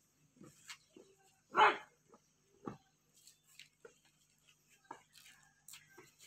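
A dog barks, one loud bark about a second and a half in, with a few fainter short sounds scattered around it.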